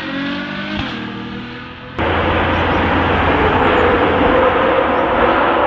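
Ferrari GTC4Lusso's V12 through a Novitec exhaust, its note falling in pitch and fading as the car drives away. About two seconds in, the sound cuts abruptly to a loud steady rushing noise with a faint held engine note as the car comes from far off.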